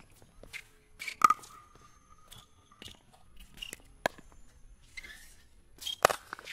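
Pickleball rally: a rapid series of sharp pops as paddles strike the hard plastic ball back and forth, about ten hits. The loudest hit comes about a second in and rings briefly; another hard hit lands near the end.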